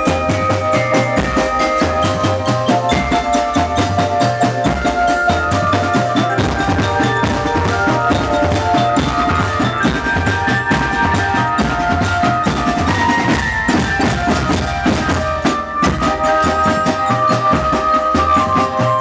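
Marching drum band playing: bass drums and snare drums beat a steady, fast rhythm under a melody of held notes.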